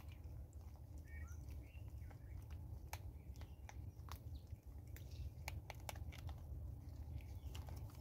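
Vervet monkeys foraging for seed on a wooden stump close to the microphone: scattered sharp clicks and crunches of seed being picked up and chewed, over a low steady rumble. Faint bird chirps about a second in.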